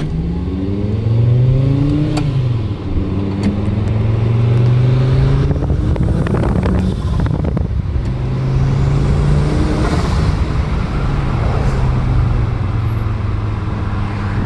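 Turbocharged VW/Audi engine pulling under acceleration, heard from outside the car window, with revs climbing at the start and again in the second half. Around the middle the engine note drops out into a rushing, rattly stretch as the throttle closes, where the aftermarket RKX-tech diverter valve vents boost.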